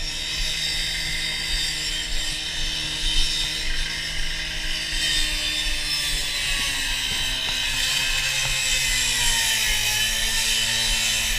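Fire engine's engine and water pump running at raised revs to pressurize a hose line, a steady hum with a high hiss over it. The pitch sags between about eight and ten seconds in and climbs again near the end.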